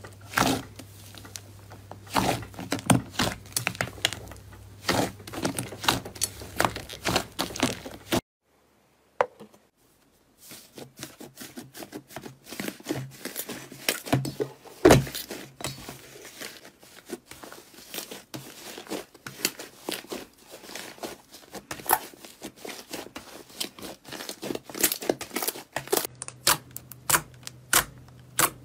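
Hands kneading and pressing soft fluffy slime, with a dense run of quick, irregular sticky pops and crackles as air pockets in the slime burst. The sound drops out for about two seconds some eight seconds in, then the squishing and popping resume.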